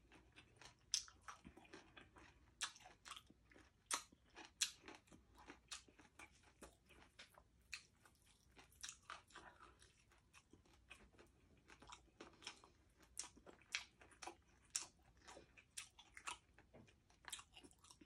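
A person chewing crispy deep-fried pork leg (crispy pata) close to the microphone: a steady run of sharp, irregular crunches, some much louder than others.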